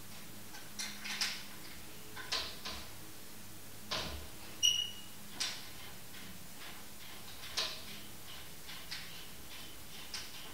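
Scattered small clicks and rustles of hands handling fittings and hoses at a bicycle frame's bottom bracket, about nine in all, with one brief high squeak about four and a half seconds in.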